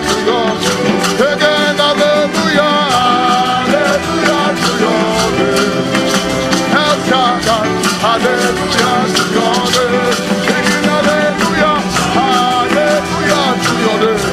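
Upbeat gospel band music with a steady beat, carried by hand percussion and a melody line.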